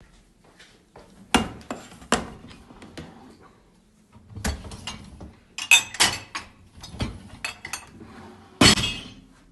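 Dishes, glasses and cutlery clattering and knocking as they are loaded into a dishwasher, in an irregular run of sharp clinks and bangs. The loudest come about a second and a half in, around six seconds, and near the end.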